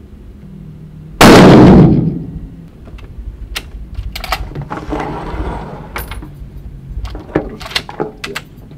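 A single very loud shot from a Steyr SSG 08 bolt-action sniper rifle about a second in, dying away within a second. It is followed by a series of sharp metallic clicks and clacks as the bolt is worked.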